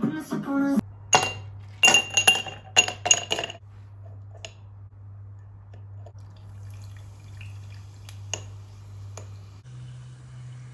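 Background music that stops within the first second, then a quick run of bright clinks with a ringing tone over about two and a half seconds. A faint, steady low hum follows.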